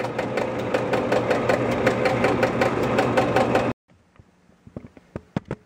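Electromechanical pinball machine's score motor running through a reset, a steady hum with rapid, evenly spaced clicking of its cam switches and relays, about five or six clicks a second. The 1,000-point score reel is not resetting to zero, so the motor keeps cycling. It stops abruptly about two-thirds of the way through, leaving only a few faint clicks.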